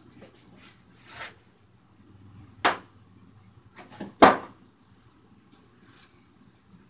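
Skateboard hitting the concrete floor and a wooden plank during a trick: one sharp smack about two and a half seconds in, then a couple of light clicks and a louder crack with a short rattle a little after four seconds.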